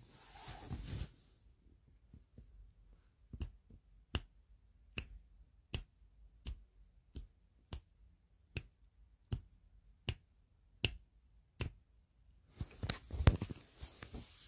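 About a dozen sharp, evenly spaced clicks, roughly one every three-quarters of a second, starting a few seconds in and stopping a few seconds before the end. Handling and rustling noise close to the phone's microphone comes at the start and again near the end, and the burst near the end is the loudest sound.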